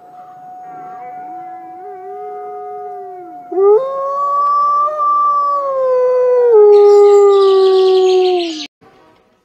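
Grey wolves howling: long, held notes at two different pitches overlapping. The louder howl jumps up in pitch about three and a half seconds in, steps down lower about three seconds later, and cuts off abruptly near the end.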